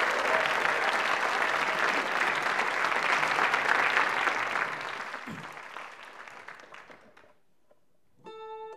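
A hall audience applauding, the applause fading away over a couple of seconds to a brief hush. Near the end the first few plucked notes of a harp ring out.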